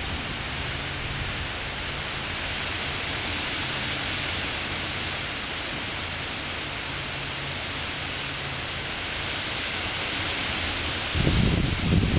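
Strong gusty wind, a steady rushing hiss. About eleven seconds in, gusts buffet the microphone with loud low rumbles.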